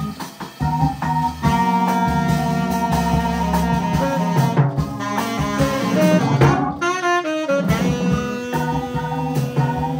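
Live jazz band playing an up-tempo funky groove, with a saxophone lead over drum kit and bass.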